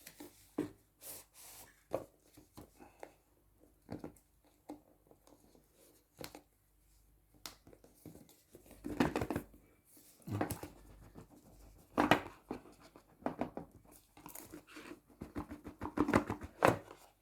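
Dash cam box and its packaging being opened and handled by hand: scattered rustles, scrapes and small clicks, with louder bursts of rustling around the middle and near the end.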